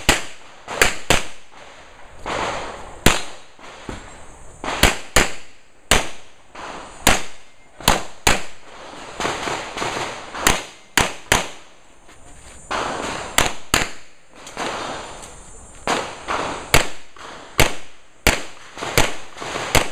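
Pistol shots fired in a long string, often as quick pairs, with a second or two between groups as the shooter moves to new targets.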